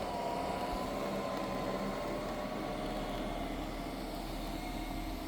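Xiaomi H40 robot vacuum running, its suction fan giving a steady whir with a faint high whine held over it.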